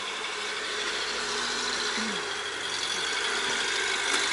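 Vehicle running with a rattle and a steady whine, getting a little louder near the end.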